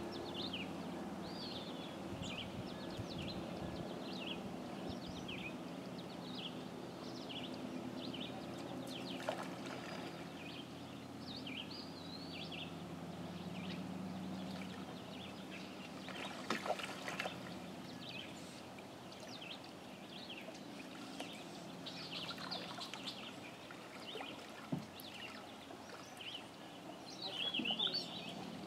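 Small birds chirping and calling repeatedly over a low, steady background hum, with a couple of sharp knocks about nine and seventeen seconds in.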